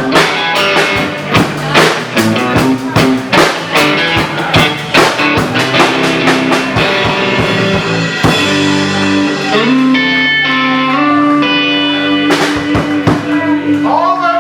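Live rock band of electric guitar, bass and drum kit playing an instrumental passage. Dense drum hits give way about halfway through to long, held chords.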